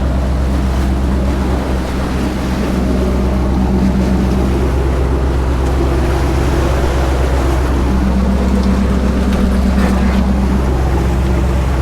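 A boat's motor running steadily at sea, with water and wind noise over it. Its note strengthens twice for a few seconds.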